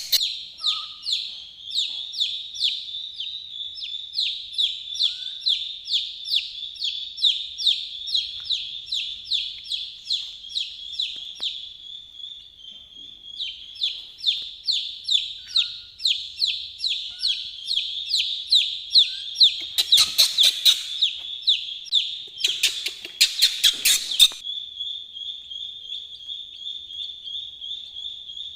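Young chicks peeping continuously, a rapid stream of high, downward-sliding peeps several a second. Two short bursts of noise cut through the peeping about two-thirds of the way through and again a little later.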